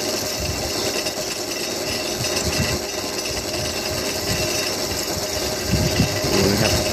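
Drill press running at low speed, its carbide-tipped bit drilling into a stainless steel kitchen knife blade: a steady motor and cutting sound with a few low bumps.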